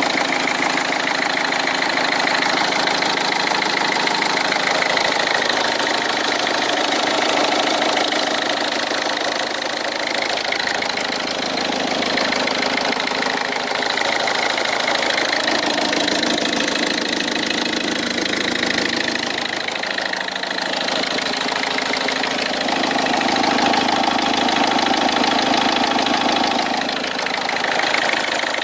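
An engine running at a steady speed with a fast, even clatter. Its tone shifts slightly now and then.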